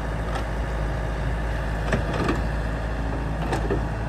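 Yanmar ViO70 mini excavator's diesel engine running steadily while it digs and swings soil, with a few short knocks from the bucket and arm about two seconds and three and a half seconds in.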